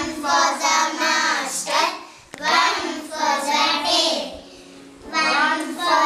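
A group of young children singing a poem together in unison, line by line, with brief pauses between the lines.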